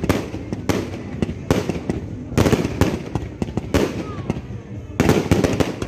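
Firework cake battery firing, its shots and bursts going off about once a second, with a quick cluster of bangs near the end.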